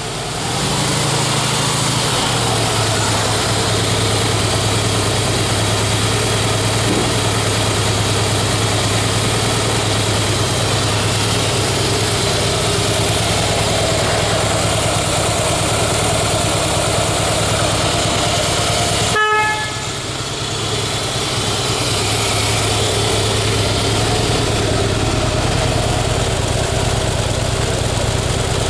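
Harley-Davidson Night Train FXSTB's 1584 cc V-twin idling steadily, its idle speed dropping and settling about two seconds in. About two-thirds of the way through, the horn gives one short beep.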